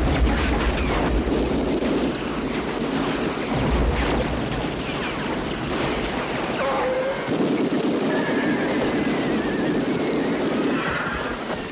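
Gatling gun firing in long rapid bursts on a western film soundtrack, with heavy booms of explosions near the start and about four seconds in.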